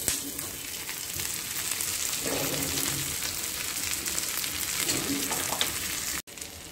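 Butter sizzling on a hot iron tawa as idli fries with chopped onion, garlic and coriander: a steady crackling hiss.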